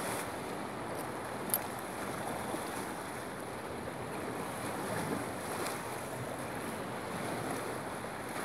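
Lake waves washing against a pier, with wind on the microphone. There is a sharp click about one and a half seconds in.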